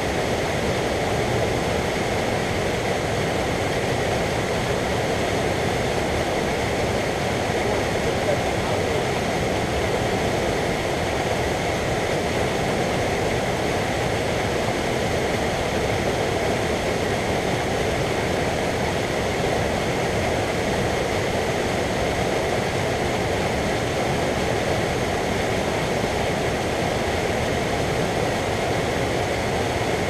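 Fast mountain stream rushing over rocks and through whitewater: a steady, even rush of water that does not let up.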